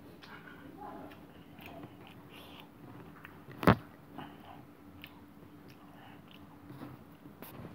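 A person chewing a mouthful of food with the mouth closed, with faint wet mouth sounds and small clicks. One sharp knock stands out a little over halfway through.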